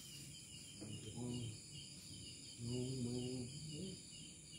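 Insects, such as crickets, chirping steadily in a high, pulsing trill of about four pulses a second. A faint low voice is heard twice, briefly about a second in and for about a second past the middle.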